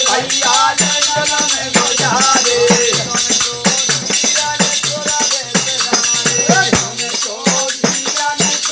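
Bundelkhandi folk song: a man singing a wavering melody over a fast, steady beat of hand cymbals, wooden clappers and a small hand-beaten frame drum, with bright jingling throughout.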